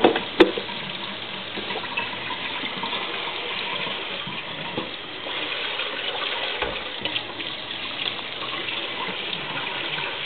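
Water running steadily from a tap into a sink, with two sharp knocks right at the start.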